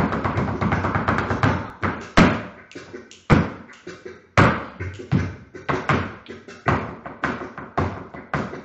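Flamenco footwork (zapateado) of an escobilla: shoe heels and soles striking the floor. It opens with a fast run of strikes, then single loud stamps about a second apart, then quicker accented stamps with lighter taps between them.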